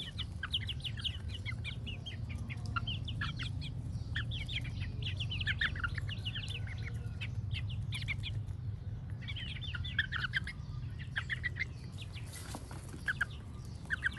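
Young chickens foraging and giving many short, high peeps in quick runs, over a steady low hum.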